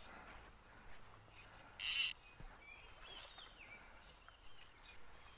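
One short rasping zip of fly line being stripped through the fingers and rod guides, about two seconds in, while the angler works a fly snagged on a log.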